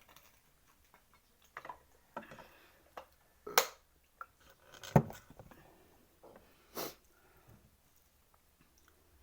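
Eating at a table: scattered clicks and knocks of utensils against tableware with some chewing, the loudest a sharp knock about five seconds in.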